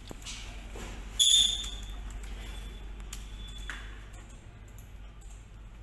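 A short, high electronic ping about a second in, the loudest sound, over a steady low hum, with a few faint clicks.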